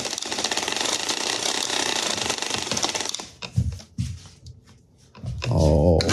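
Cordless impact driver spinning a 3D-printed filament spool winder, its impact mechanism hammering rapidly for about three seconds before stopping. A few loose knocks follow, then a short vocal grunt near the end.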